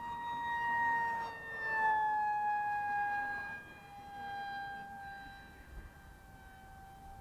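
Radio-controlled model MiG-35 jet in flight: a steady high-pitched whine from its power plant. The pitch drops a little about two seconds in, and the whine grows fainter after that.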